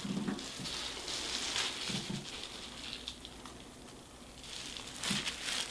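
Hands working wet hair dye through hair: a crackly, rustling rubbing with small ticks, easing off briefly shortly before the end, then resuming.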